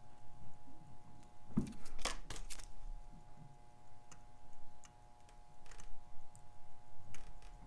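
Small sharp metallic clicks and taps of watchmaker's tools working on a watch case and movement. There is a quick cluster of clicks about two seconds in, then a few lighter, scattered ones.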